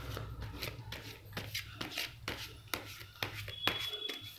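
Tarot cards being handled and leafed through in the hand: a run of soft, irregular card clicks and rubs.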